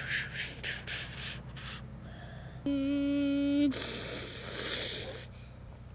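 Hands squelching and splashing through wet mud and muddy water, in a run of short wet bursts, then a longer sloshing wash. A steady hum lasting about a second comes in just before the middle.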